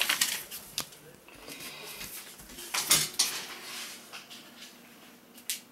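Puppies' claws clicking and scrabbling on a hard floor: scattered light clicks, a louder flurry about three seconds in, and a sharp click near the end.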